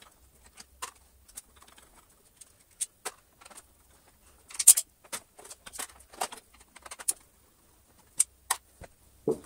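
Screwdriver undoing small screws in the plastic handle housing of a Dyson DC33 upright vacuum: scattered light clicks and taps of metal on plastic, with a sharper clatter about halfway through.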